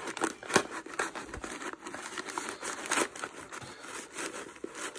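Crumpled brown packing paper crinkling and rustling as fingers dig into it inside a tin can, in irregular sharp crackles.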